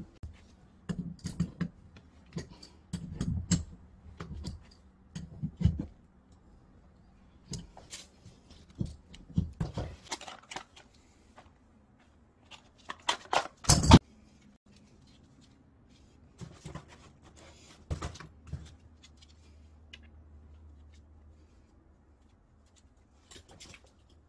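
Hands working brass plumbing fittings and a boxed pressure-reducing valve: scattered clicks, knocks and rustles of gloves, clothing and packaging, with the loudest sharp noise about 14 seconds in.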